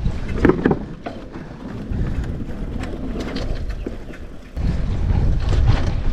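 Wind buffeting the microphone, a low rumble with a few scattered clicks that turns suddenly louder about four and a half seconds in.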